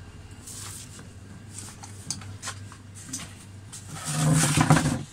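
Handling and rustling noise from a phone being carried while it records, with scattered clicks over a steady low hum. A louder muffled burst comes about four seconds in.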